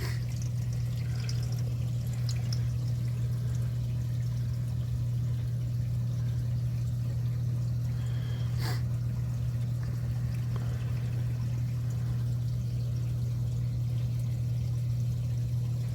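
Reef aquarium water pouring and trickling over a steady low hum, with a single sharp click about nine seconds in.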